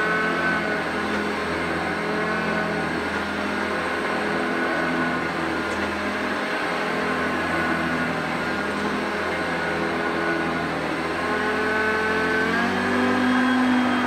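Hoover Concept One upright vacuum cleaner running on carpet: a steady motor whine whose pitch wavers slightly as it is pushed back and forth, shifting about twelve and a half seconds in.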